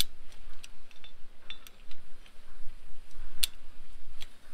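In-line fence wire ratchet being worked by hand, giving a series of sharp metallic clicks at uneven intervals as the high-tensile wire is tightened. A low wind rumble on the microphone runs underneath.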